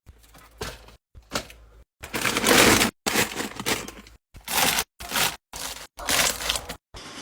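Restocking handling noises in short, abruptly cut bursts: packaging crackling and crinkling as groceries are unpacked and put away, the loudest stretch about two seconds in.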